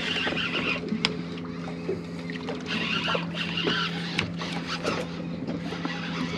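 Boat's outboard engine idling with a steady low hum, under scattered light clicks and knocks.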